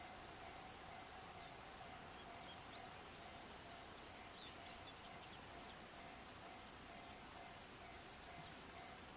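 Near silence with faint birdsong: many short, high chirps from small birds, scattered throughout, over a faint steady hum.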